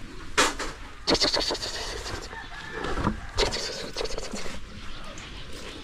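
Cloth rustling and scraping in several short bursts as a package wrapped in a thick shawl is handled and shifted about on a concrete ledge.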